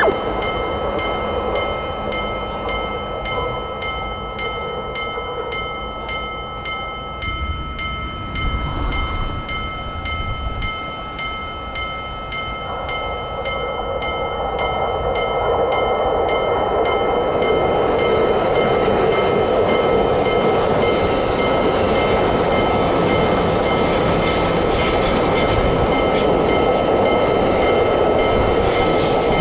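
Japanese railroad crossing warning bell ringing in a steady, even rhythm while a train runs past, its running noise building from about halfway through and staying loud to the end.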